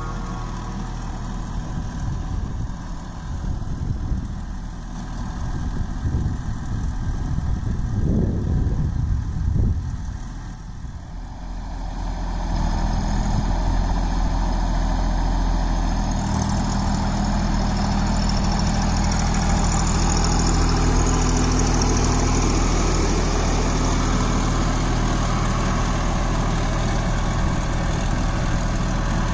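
Farmtrac Atom 26 compact tractor's three-cylinder diesel engine running under load while pulling a three-furrow ridger through dry soil. The engine note is uneven at first and becomes louder and steady about twelve seconds in.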